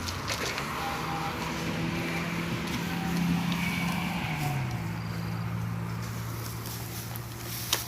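A motor engine running steadily, its pitch dropping about four and a half seconds in and then holding at the lower speed.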